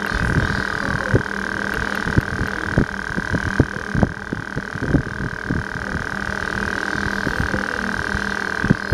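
Handling bumps and low rumble on a compact camera's built-in microphone, many short irregular knocks, under a steady high-pitched whine and a fainter low hum.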